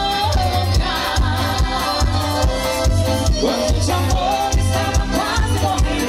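Live forró pé de serra band playing a dance tune, with a steady, regular low beat under the melody.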